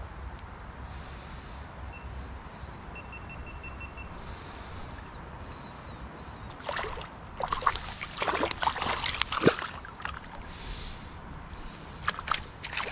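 Hooked brown trout splashing and thrashing at the water's surface for a few seconds about halfway through, then a short splash near the end as it is scooped into a landing net, over a steady river background.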